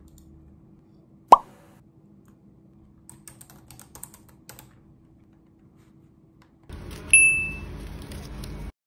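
A quick rising 'pop' editing sound effect about a second in, then faint clicks of typing on a laptop keyboard. Near the end a brief bright chime effect sounds over a louder noisy background.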